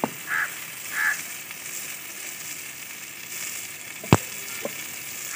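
Chicken liver in yogurt masala sizzling on a steel tawa over a wood fire as a wooden spatula stirs it, with a sharp knock of the spatula against the pan about four seconds in. The marinade's liquid has nearly cooked dry, so the liver is frying rather than simmering.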